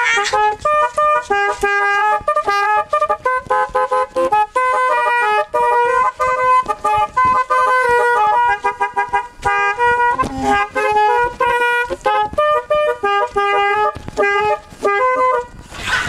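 A telolet snail-type (keong) air horn driven by a DAV musical air-horn module plays a quick melody. Its short tooting notes come in several pitches at once, with brief breaks between phrases.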